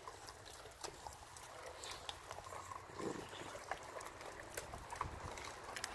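Puppy chewing a raw turkey carcass, crunching on bone in quick, irregular clicks and cracks.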